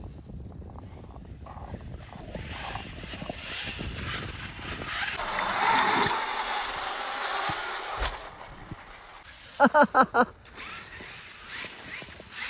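Electric Traxxas X-Maxx 8S RC monster truck being driven over rough, bumpy ground: its brushless motor whining and tyres rumbling, swelling to a peak about halfway through and then easing off. Near the end come four quick, loud pitched blips in a row.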